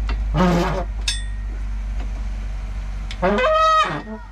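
A bare Toyota 2RZ engine block is being turned over by hand on a steel engine stand. There is a sharp metallic clink about a second in, then a loud, pitched squeal with a short rising start from a little past three seconds until nearly four seconds, over a steady low hum.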